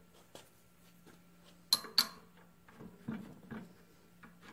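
Two sharp metallic clicks about a quarter second apart, then a few softer knocks, as a McCormick-Deering 3 hp hit-and-miss engine is rolled over slowly by hand at its flywheel.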